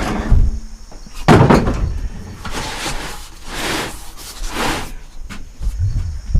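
Heavy thumps as car tires on steel wheels are lifted and set down, followed by several scraping, swishing sounds as they are shifted around.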